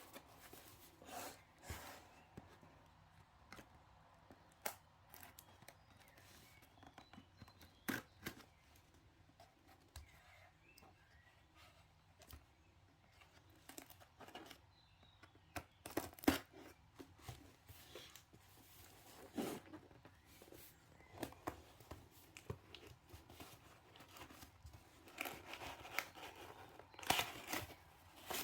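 Packaging being torn open and crinkled by hand, in scattered short tears, rustles and clicks that grow busier toward the end.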